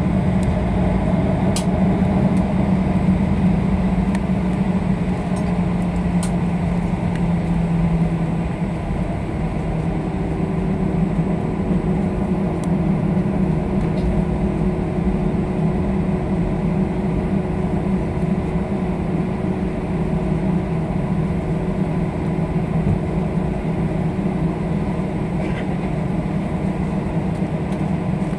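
Steady airliner cabin noise during taxi: jet engines and air-conditioning humming. The low tone in the hum drops slightly in pitch about eight seconds in, and a higher steady tone joins shortly after.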